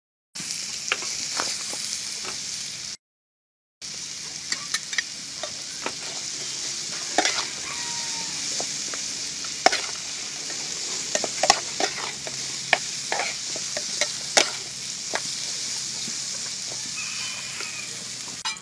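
Oil sizzling steadily in a frying pan as dried red chillies and garlic fry, with the clicks and scrapes of a metal spatula stirring against the pan. Two brief gaps of silence break it up in the first few seconds.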